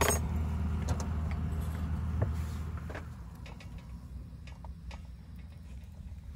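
Steady low rush of a portable gas burner heating a boiling Turkish double teapot, growing quieter about three seconds in. A sharp metallic clink near the start and lighter clicks and taps come from the tea tin and pot as tea leaves are tipped into the top pot.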